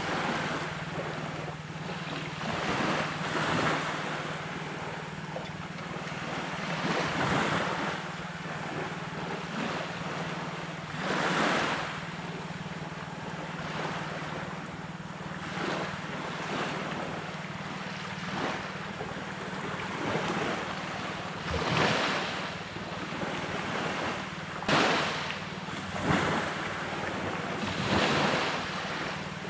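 Sea surf washing onto a beach, with waves breaking every few seconds over a continuous wash. A steady low hum runs underneath.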